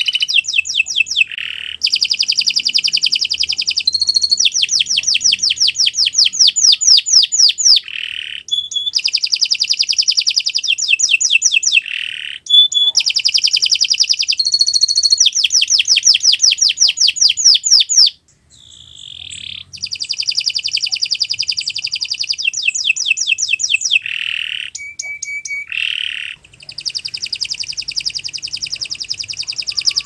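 Domestic canary singing a long, nearly unbroken song of fast trills, each a rapid run of repeated high notes, changing from one trill to the next every few seconds, with a brief lull about eighteen seconds in.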